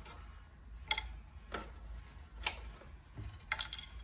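A few sharp, irregular clicks and taps of hard plastic as the old RC truck body is worked off its body posts and lifted from the chassis, with a small cluster of clicks near the end.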